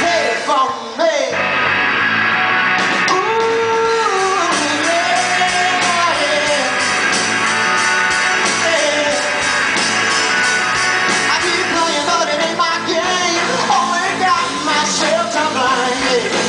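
Live rock band playing: a male singer over electric guitar, electric bass and a drum kit, heard through the hall's sound system.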